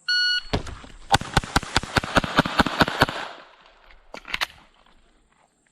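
Shot-timer start beep, then a Glock 44 .22LR pistol firing a rapid string of about a dozen shots at roughly five a second, followed by two more sharp reports about a second later.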